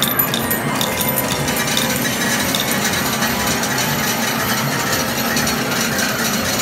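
Medal pusher machine clattering: a steady, dense rattle of many metal medals being fed in, shoved and spilling over the field during a 56-medal payout.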